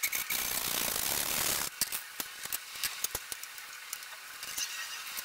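Handsaw cutting through a jarrah or karri hardwood strip, a continuous rasping for about the first second and a half. It stops and is followed by scattered light clicks and knocks as the wood and clamp are handled.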